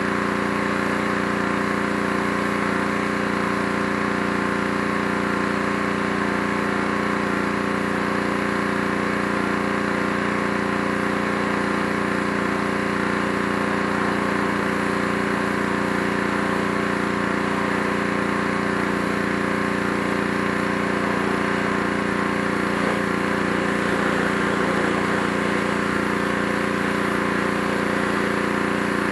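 Pressure washer running steadily, its motor and pump humming under the hiss of the high-pressure water jet striking the wooden deck steps.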